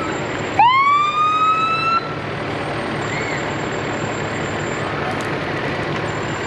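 An emergency vehicle's siren gives one short rising whoop, about a second and a half long, that cuts off suddenly. A steady background of noise runs under it.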